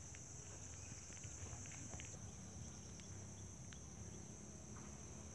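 Insects droning steadily at a high pitch, fading somewhat about two seconds in, with a few faint ticks over a low rumble.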